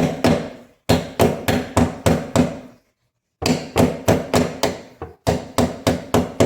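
A hammer tapping on metal in quick, even strikes, about three to four a second, each with a short ring. The run breaks off for a moment about three seconds in and again briefly near five seconds. This is the tapping of a garbage disposal's mounting ring round to lock and tighten the unit under the sink.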